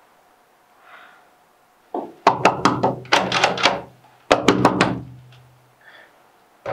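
Knocking on a door: two bursts of rapid, loud knocks, the first about two seconds in and the second about four seconds in, each followed by a low ring from the door.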